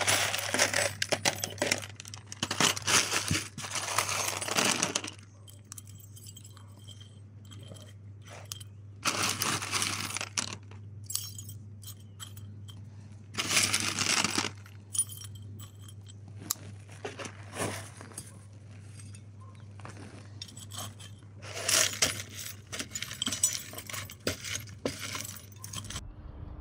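Small pieces of metal clinking and rattling as they are handled and poured, in four spells of a few seconds each, over a steady low hum.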